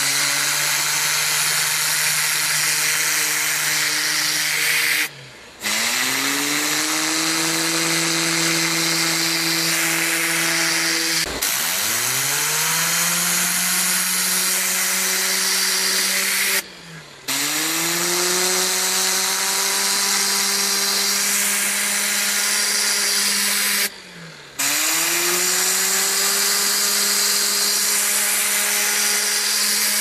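A carpet spray-extraction cleaning tool running with a loud rushing airflow hiss and a machine whine. It cuts out briefly three times, and each time it comes back its pitch climbs as it gets up to speed.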